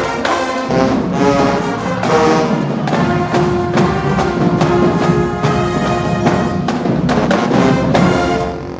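Marching band playing: brass section with drums and percussion hits.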